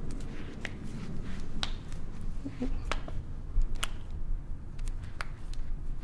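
Finger and wrist joints cracking under chiropractic traction: a series of short, sharp pops, about six or seven spread across a few seconds, as the fingers are pulled one by one.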